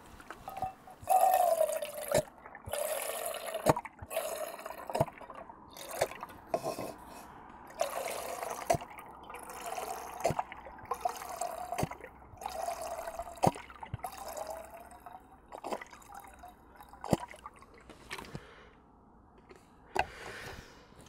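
Water being poured in repeated spurts into a cook pot, filling it, with sharp clicks and knocks from handling the pot and container. The pouring stops a few seconds before the end.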